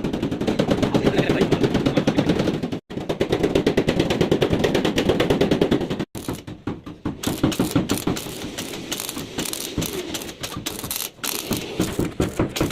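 Rapid, continuous hammering on car body metal, many blows a second, broken off abruptly twice.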